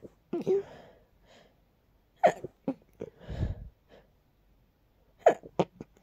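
A person sneezing softly, set off by dust, several times over: one sneeze near the start, another about two seconds in, and a quick run of short sneezes near the end, with breaths between.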